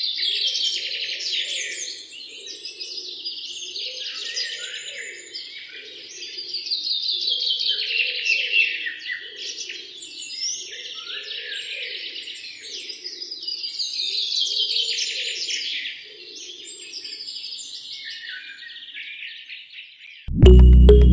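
Dense chorus of many small birds chirping and twittering, swelling and fading in waves every few seconds. Loud music cuts in abruptly near the end.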